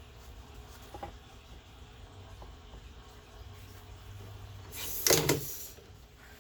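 Hand-work noises: a small click about a second in, then a short, loud scraping rattle about five seconds in, as tools and parts are handled during radiator removal.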